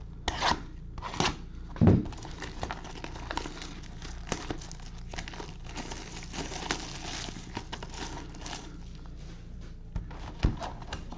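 Plastic shrink wrap being torn off a sealed trading-card box and crumpled: a few sharp rips in the first two seconds, then continuous crinkling, with more sharp tearing near the end.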